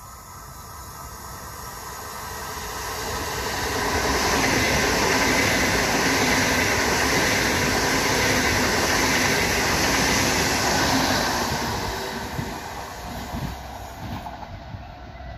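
PKP Intercity ED250 Pendolino electric high-speed train passing at speed without stopping: a rush of wheels and air that swells over the first few seconds, stays loud for about seven seconds, then fades.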